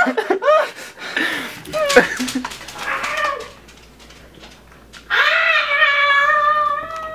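Dachshund giving one long, steady, whining howl about five seconds in, lasting a couple of seconds, after a few shorter calls and noises.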